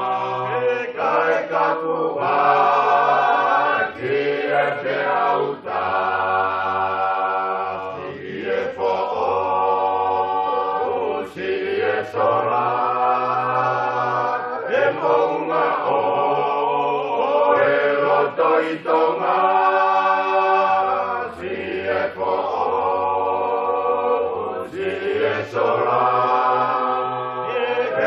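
Choir singing in Tongan in several-part harmony, in phrases a few seconds long with brief breaks between them, over a held low voice part.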